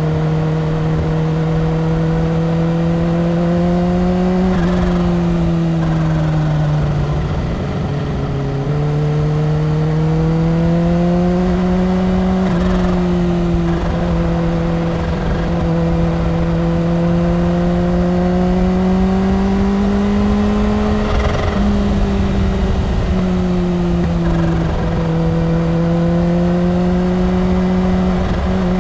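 Kawasaki Ninja H2's supercharged inline-four engine at highway speed, its note rising and falling gently with the throttle, with a dip in pitch about seven seconds in.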